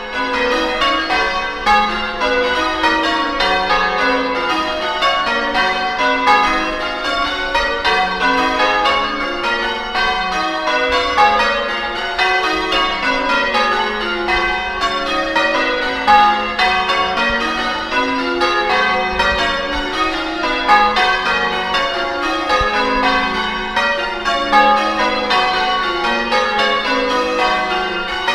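Church bells pealing: many bells struck one after another in quick succession, several strikes a second, their tones overlapping in a continuous ringing cascade.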